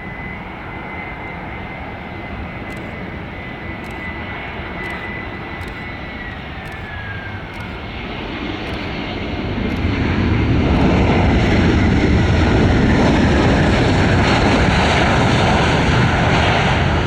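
Airbus A321-211 jet airliner's CFM56 turbofan engines on landing. A steady high whine drops in pitch about six seconds in, then a loud, deep engine rumble swells from about eight seconds in and holds.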